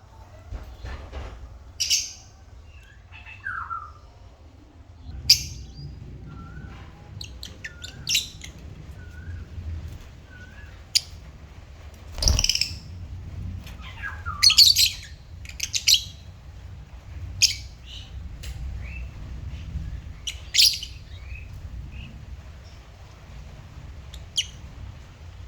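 Lovebirds chirping and squawking: short, sharp high calls every second or two, with softer short curling whistled notes between them, over a low steady background hum.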